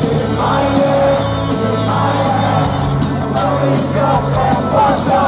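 Live rock band with a lead singer, played loud through an arena's PA: steady bass notes, sung lines and cymbal wash heard from the audience.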